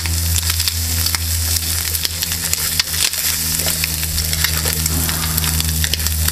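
Chopped bacon sizzling and crackling in a small steel camp pot over an alcohol burner, stirred and turned with a spatula, over a steady low hum.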